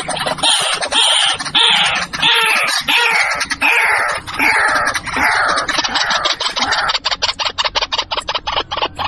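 White-breasted waterhen calling: a string of loud notes about three every two seconds, each falling in pitch. Near the end this gives way to a fast run of short clicking ticks.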